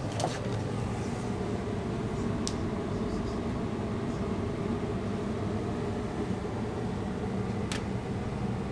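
Steady low hum of room background noise, with three brief faint clicks: one just after the start, one about two and a half seconds in and one near the end.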